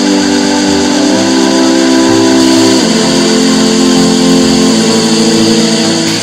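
Ryobi BDS4601G belt and disc sander running, with a loud whistling hum that steps to a different pitch three times over a steady high whine.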